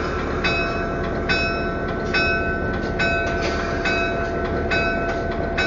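The EMD GP9 diesel locomotive's bell ringing about once a second over the steady rumble of its 16-cylinder engine, heard from inside the cab.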